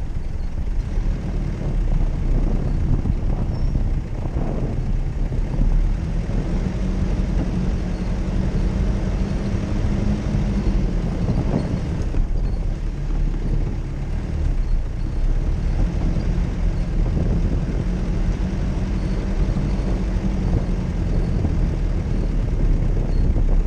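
Jeep Cherokee engine running under load off-road, its pitch rising and falling slowly a few times as the throttle is worked, over a heavy low rumble.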